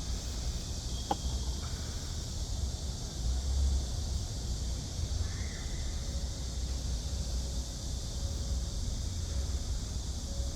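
Cicadas singing in a steady, unbroken high-pitched drone over a low rumble. There is a single sharp click about a second in.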